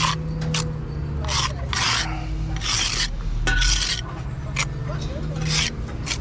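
Steel brick jointer drawn along fresh mortar joints in a brick wall, tooling the joints. It makes short, rasping scrapes, about eight of them, each under half a second, at an uneven pace.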